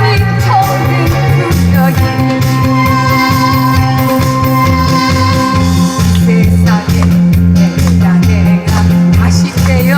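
Korean trot song played loud through a PA system, with a steady bouncing bass and keyboard beat and a singer's voice coming in near the start and again over the last few seconds.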